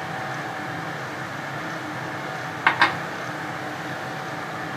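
Two quick clinks of a glass knocking against a jar about two and a half seconds in, over a steady background hum, as a glass of yogurt is emptied in for a smoothie.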